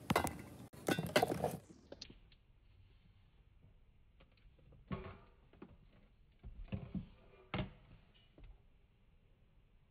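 Spice and seasoning bottles knocking and clattering against each other and the cabinet shelf as they are moved about and picked up. There is a busy burst of clatter about a second in, then a few separate knocks around five seconds and again around seven seconds.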